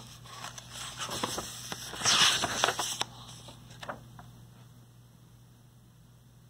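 A paperback picture-book page being turned: paper rustling and crackling with a few sharp clicks. It is loudest about two seconds in and has died away by about four seconds in.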